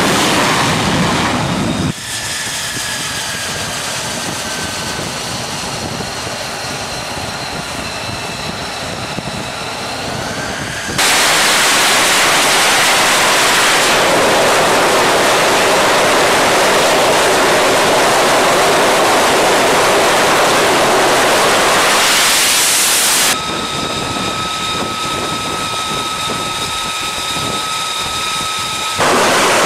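Lockheed Martin F-35C's jet engine running, heard across several cut-together shots. First comes a high whine that bends slightly in pitch. In the middle there is a longer stretch of loud, even engine noise. Near the end a steady high whine returns.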